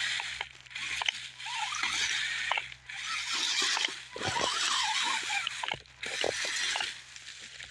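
RC rock crawler's electric motor and geared drivetrain whirring in short bursts of throttle, about five times. Its tyres scrape and knock on rock.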